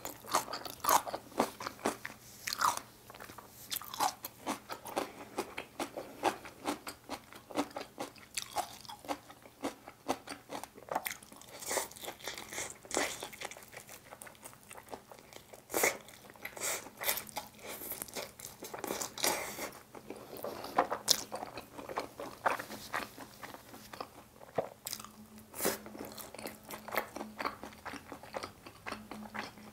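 A person chewing and crunching food close to the microphone, many crisp, irregular bites: eating sauced Korean fried chicken, whose coating crackles between the teeth.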